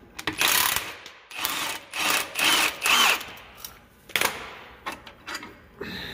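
Milwaukee cordless impact wrench hammering in several short bursts during the first three seconds, backing out the pivot bolts of a planter's closing-wheel frame. A few sharp clicks follow near the end.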